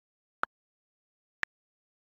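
iPad on-screen keyboard key-click sounds: two short, sharp clicks about a second apart, one for each key tapped (the number-keys switch, then "5").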